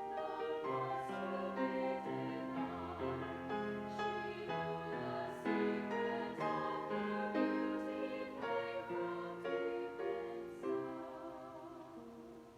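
Chamber choir singing in harmony, sustained chords moving from note to note. Near the end the phrase dies away into a fading final chord.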